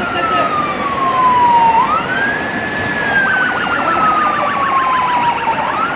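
Siren wailing: each cycle rises quickly in pitch and then falls slowly, repeating about every two seconds, over a steady rushing noise. From about three seconds in, a rapid warbling tone joins it.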